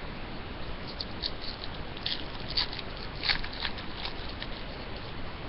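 Faint scratchy rustles and small ticks of hockey trading cards being handled and slid through the hands, scattered over a few seconds above a steady hiss.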